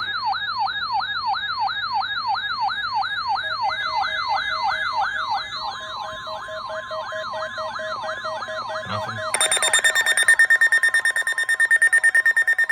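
Several NOAA weather radio receivers sounding their alert alarms at once for a weekly test. A siren-like warble sweeps up and down about three times a second, steady tones join it, and about nine seconds in a louder, fast-pulsing beeping alarm starts.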